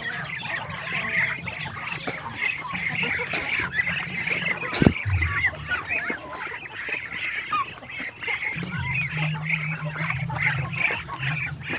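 A crowded flock of Muscovy ducks calling all at once, many short, high overlapping peeps and chirps, as the birds press round for feed. A single sharp knock comes about five seconds in.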